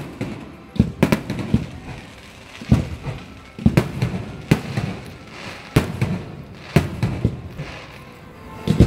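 Fireworks display: aerial shells bursting in a series of sharp bangs, about one a second, with crackling after the bursts.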